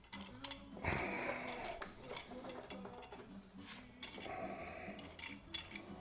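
Light metallic clinks and scraping as a used brake pad and brake parts are handled.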